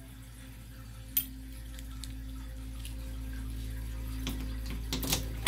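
A key going into and turning in the lock of a steel gun safe, with a few sharp metallic clicks in the last second or so. Under it runs a steady low drone that grows gradually louder.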